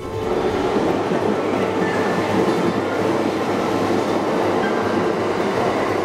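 Electric commuter train running past a station platform at speed: a steady, loud rush of wheels on rails with a few faint high squeals.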